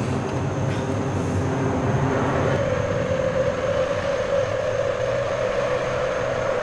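Steady low rumbling drone, joined about two and a half seconds in by a held mid-pitched tone that lasts to the end.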